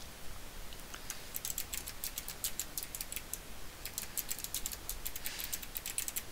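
Typing on a computer keyboard: a quick run of keystrokes starting about a second in, with a few short pauses between words.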